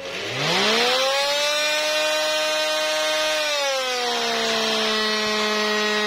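Electrolux ErgoRapido 2in1 Allergy 18 V cordless stick vacuum's motor spinning up with a rising whine, running at high speed, then stepping down to a lower steady pitch about three and a half seconds in as it drops to low speed. It is very loud at both speeds, a noise fault the owner traces to dirt inside the unit.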